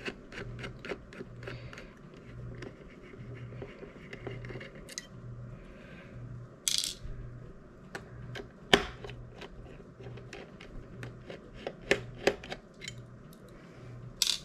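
Phillips screwdriver unscrewing the small screws that hold a radio board on a Raspberry Pi 4 inside a metal case: a run of light metallic clicks and ticks, with a short scrape about seven seconds in and a sharper tap about a second and a half later.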